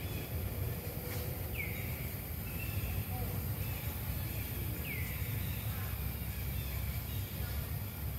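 Outdoor forest ambience with a steady low rumble. Two short, high-pitched calls, each falling in pitch, come about three seconds apart.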